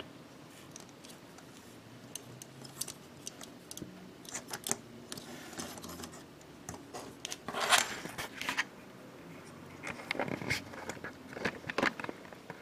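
Small plastic parts of a Bandai G-Frame figure clicking and scraping as they are handled and pressed together, in scattered light clicks, the loudest a short scrape about eight seconds in.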